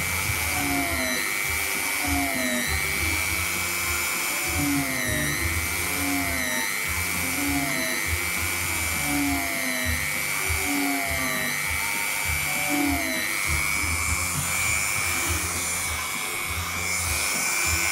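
Handheld rotary tool running at high speed with a steady high whine, its pitch dipping briefly again and again as the bit bears on the edge of a leather cap. Near the end it runs steadier and a little higher, free of load.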